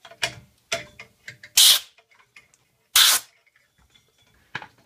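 Two short bursts of blown air, about a second and a half apart, amid a few light knocks and taps of tools and wood.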